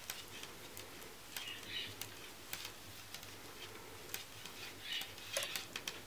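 Soft, irregular clicks of a pair of 3 mm metal knitting needles, with light rustling of yarn as stitches are knitted.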